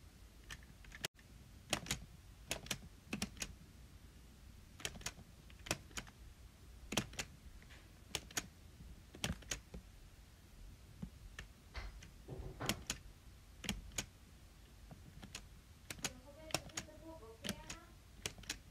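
Irregular sharp clicks made close to the microphone, about one or two a second. Brief squeaky, warbling sounds come in near the end.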